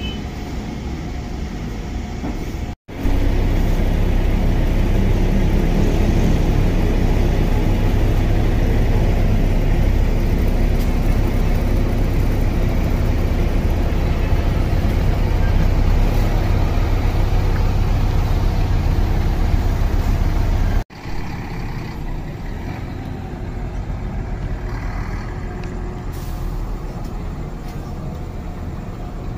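A bus engine running steadily. It is much louder and deeper between two abrupt cuts, about three seconds in and about twenty-one seconds in.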